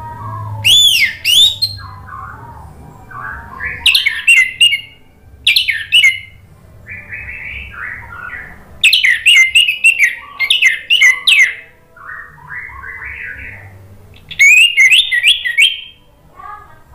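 Orange-headed thrush singing: about five loud bursts of sharp, sweeping whistled notes and quick runs, with softer, lower warbling phrases in the pauses between them.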